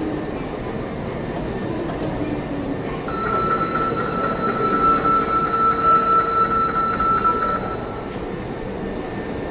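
Hankyu 7300 series train running, heard from inside the carriage: a steady rumble of wheels and car body. About three seconds in, a steady high-pitched squeal comes in and holds for about five seconds before fading.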